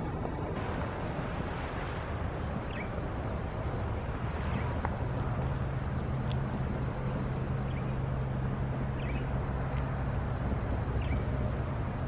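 Low, steady engine drone from an unseen vehicle, growing stronger about five seconds in, with small birds chirping now and then.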